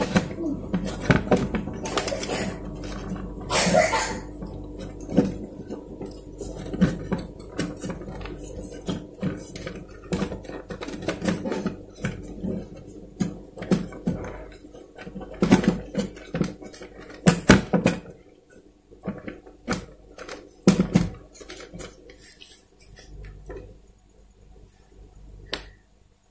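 Irregular clicks, knocks and light rattles of hands handling an LED TV's circuit board, plugging cable connectors into it and seating the board in the metal chassis, with a short scrape about four seconds in. The handling gets sparser and quieter in the last third.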